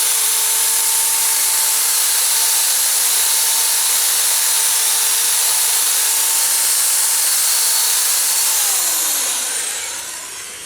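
Electric drill spinning a Mothers Power Ball foam polishing ball on a plastic headlight lens: a steady motor whine over a loud rushing hiss. About eight and a half seconds in, the motor winds down, its pitch falling and the sound fading.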